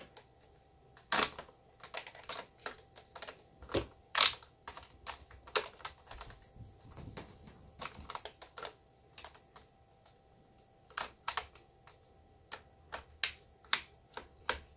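Irregular clicks and knocks of hard plastic Nerf blaster parts being handled and fitted together, some louder taps among many light ones.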